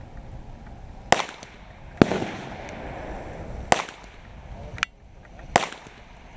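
Gunshots at a shooting range: five sharp reports at uneven gaps of about one to two seconds, each with a short echo tail, the fourth one fainter.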